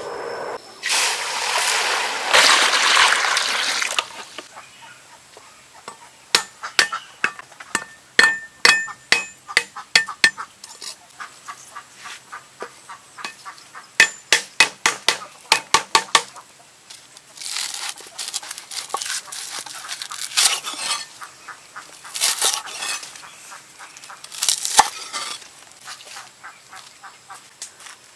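A cleaver chopping galangal on a wooden cutting board: runs of sharp knocks, several a second, after a few seconds of loud rushing noise near the start and with noisier scraping stretches later on.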